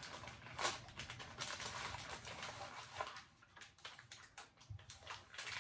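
Faint rustling and crinkling of MRE pouches and their cardboard sleeve being handled, with scattered small irregular clicks.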